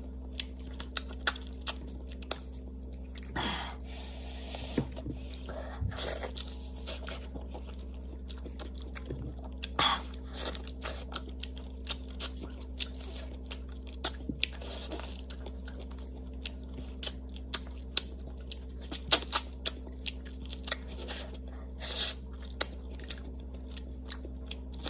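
Close-miked chewing and biting, with many sharp, irregular crunches and wet chewing in between, over a steady low electrical hum.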